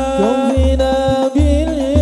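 A male voice sings a long, melismatic sholawat line, bending one held note, over a banjari rebana frame-drum accompaniment with deep bass-drum strokes a little under a second apart.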